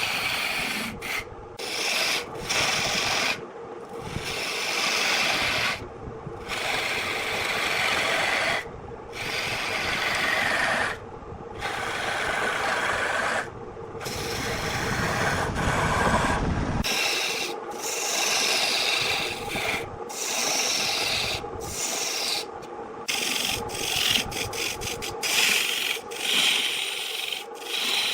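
Wood turning on a lathe: a tool or abrasive scrapes the spinning wood in repeated passes broken by brief pauses, with a faint steady hum underneath.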